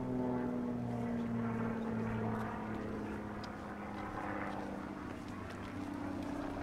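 Road traffic passing: a vehicle engine's hum slowly dropping in pitch as it goes by, over a steady wash of tyre noise.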